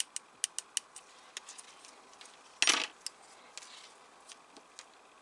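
Small plastic model parts and metal tweezers being handled: a run of sharp light clicks and taps, then one louder brief clatter about two and a half seconds in, then a few scattered ticks.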